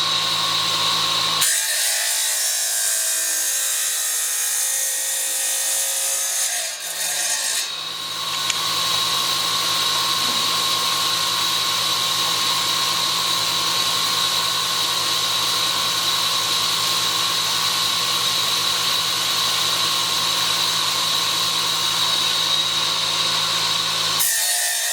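Wet tile saw running steadily with a constant high motor whine, its blade cutting ceramic subway tile. The sound shifts about a second and a half in and again near eight seconds.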